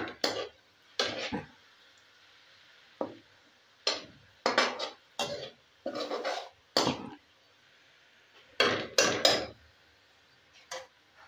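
A metal spoon scraping and clanking against a metal karahi as sliced onions are stirred while they fry to light brown in ghee. The strokes come in uneven bursts, about one every second, with a faint steady hiss of frying oil between them.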